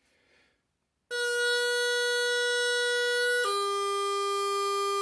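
Practice chanter playing a slow descending phrase from high A: after a moment's silence a long held high A, then a clean step down to a held F about three and a half seconds in. No drones are sounding.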